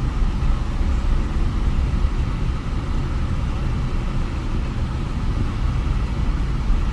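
Steady low road rumble of a car driving, with engine and tyre noise heard from inside the cabin.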